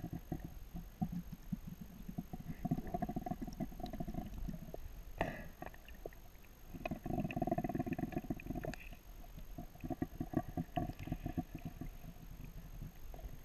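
A snorkeler breathing through a snorkel, heard muffled through the water by the underwater camera. The breaths are rough and gurgling and come in spells of about two seconds, with a longer pause around the middle.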